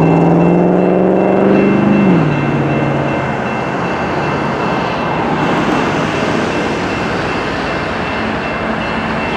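Horn of a Canadian Pacific ES44AC diesel locomotive sounding a chord that drops and cuts off about two seconds in. After that comes the steady rumble of the approaching locomotive and its container train.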